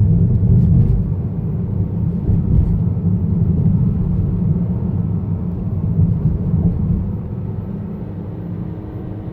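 2018 Honda Accord Sport's turbocharged 1.5-litre four-cylinder with six-speed manual: a steady low rumble from the car, with a few faint sharp clicks in the first three seconds, recorded to capture a rattling noise. The rumble eases a little about seven seconds in.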